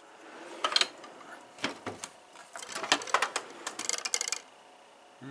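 Metal hand tools clinking and clattering in a steel toolbox drawer as they are picked up and moved, a string of clicks and rattles with a brief metallic jingle near the end.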